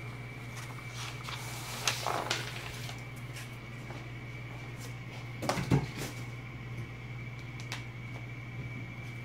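Paper being handled and slid on a wooden tabletop: a few light knocks and rustles, with the loudest cluster of knocks about halfway through, over a steady low hum and a faint high whine.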